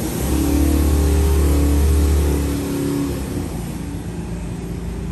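Motorcycle passing by: its engine grows loud just after the start, holds for about two seconds, then fades away.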